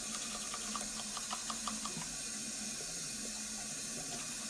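Manual toothbrush scrubbing teeth in quick, short strokes for the first couple of seconds, over a steady hiss.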